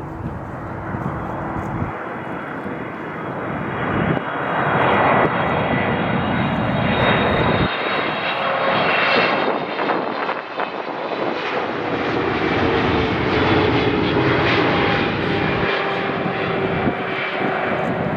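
Jet airliner passing low overhead: a rush of engine noise that swells about four seconds in and stays loud, with whining engine tones that slide down in pitch as it goes over.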